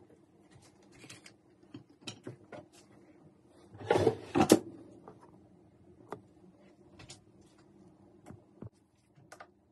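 Ninja Foodi FlexDrawer air fryer drawer pushed shut about four seconds in: a short sliding rush ending in a sharp knock as it seats. Light clicks and taps come before and after it.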